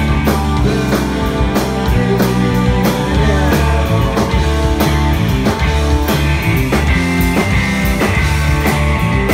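Rock band playing live and loud: electric guitars over bass and a drum kit with steady cymbal and drum hits, and a held high note coming in about seven seconds in.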